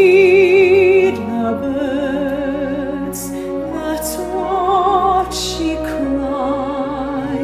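Classically trained singing voice with a wide vibrato, holding long notes over a steady accompaniment; the first held note lasts about a second before the line moves on.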